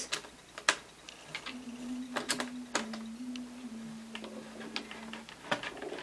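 Screwdriver working screws out of the underside of a ThinkPad T61 laptop: scattered sharp clicks and ticks of the metal tip on the screws.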